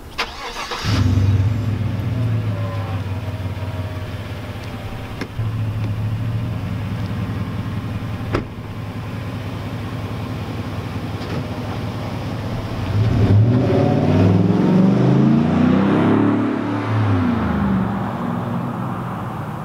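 GMC Sierra pickup's engine starts about a second in and idles steadily, with a sharp knock like a door shutting around eight seconds in. Near the end the truck drives off, its engine revving up through the gears and then fading.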